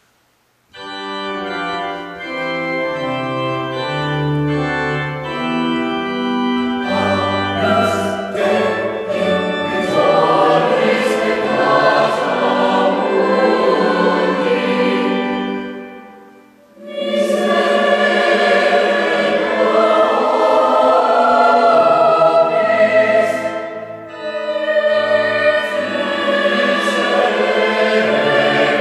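Mixed choir singing sustained chords in several parts, coming in about a second in after a brief silence, with a short break between phrases about halfway through.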